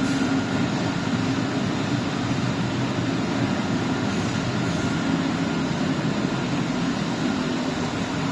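YC-20S industrial dehumidifier running under functional test, its fan and refrigerant compressor giving a steady hum and rush of air with a faint high whine.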